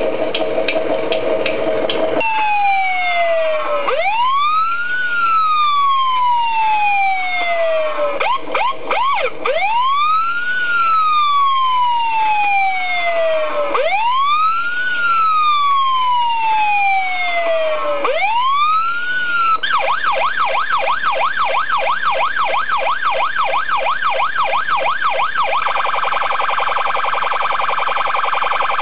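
Electronic siren sound effect from an RC model's sound module. A clicking engine sound stops about two seconds in, then a slow wail rises and falls about every five seconds. After about twenty seconds it switches to a fast yelp.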